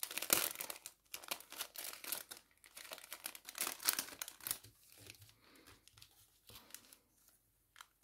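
Packaging being crinkled and torn open by hand to unwrap a piece of jewelry: dense crackling and rustling that is strongest for the first four seconds or so, then dies away.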